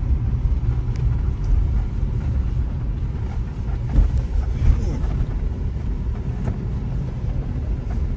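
A car driving, heard from inside the cabin: a steady low rumble of engine and tyre noise, with a brief louder jolt about four seconds in.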